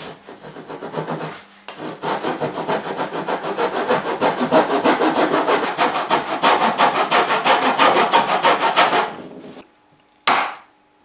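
Small hand tenon saw cutting across a wooden board at a tenon shoulder. A short run of strokes, a brief pause, then several seconds of quick, steady back-and-forth sawing that stops about a second before the end. One short scrape follows near the end.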